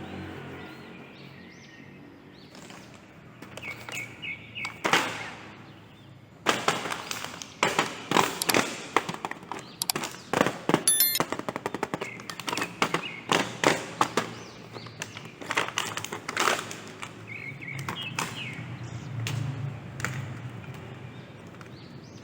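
Plastic toy packaging being opened and handled: a dense run of sharp clicks and crackles lasting about ten seconds, with birds chirping faintly behind.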